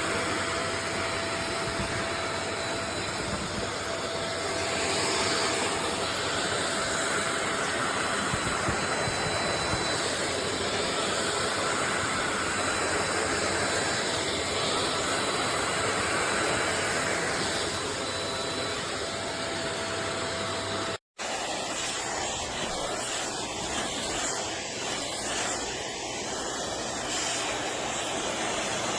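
Pet grooming vacuum running steadily: a continuous rush of air with a thin high whine. It breaks off for an instant about two-thirds through, then runs on.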